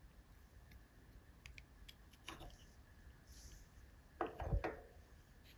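Faint clicks and taps from small circuit-board modules and a finned aluminium heatsink housing being handled, with a louder cluster of knocks about four seconds in.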